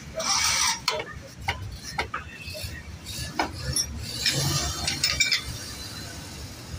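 Steel socket and sliding T-bar turning a car's front axle hub nut, the tool clicking and rattling with irregular metallic clicks, clattering more densely at the start and again past halfway.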